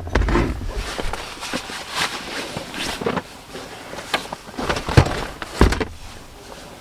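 Gear being loaded onto a truck's cloth bench seat: scattered knocks and thumps with rustling as an axe and a backpack are set down, the loudest thud about five seconds in.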